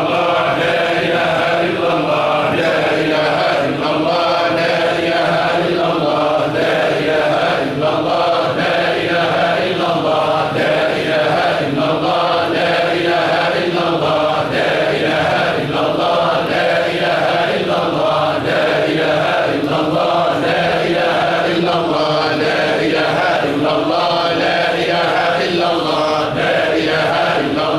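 A congregation of men chanting Tijani Sufi dhikr in unison, one short phrase repeated over and over in a steady cycle of about two seconds.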